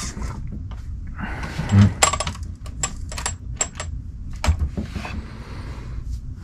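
Hands handling a 1/7-scale RC car's chassis and wheels: a soft thump about two seconds in, then a run of small sharp clicks and light knocks from the plastic and metal parts being moved.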